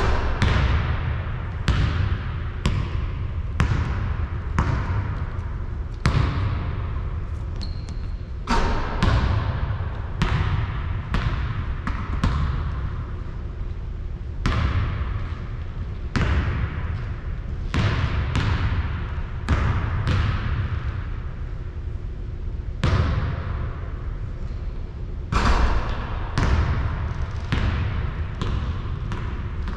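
A basketball bouncing on a hard court, single impacts coming unevenly about every one to two seconds, each with a short ringing tail, over a steady low rumble.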